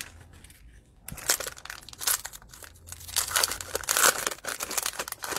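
Crinkling of a plastic wrapper as a 2020 Prizm football cello pack is opened and the cards are pulled out. It starts about a second in and is busiest in the middle.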